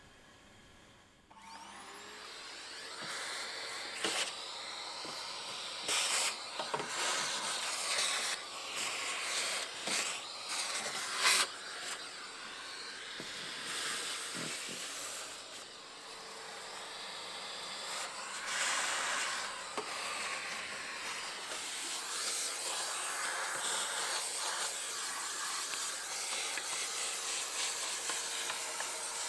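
A vacuum cleaner switches on about a second in, its motor whining up to speed, then runs steadily as the hose nozzle sucks dirt out of a car's engine bay. Occasional sharp knocks and rattles break the steady hiss.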